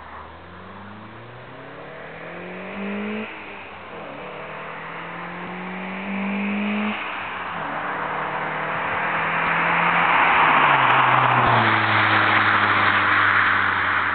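1998 Alfa Romeo 156 2.0 Twin Spark four-cylinder with an aftermarket Whitehooker exhaust and K&N sport filter, accelerating hard with a loud exhaust. The engine note climbs, drops at a gear change about three seconds in, then climbs again to another shift about seven seconds in. The car then comes past, loudest about ten to eleven seconds in, and its pitch falls as it drives away.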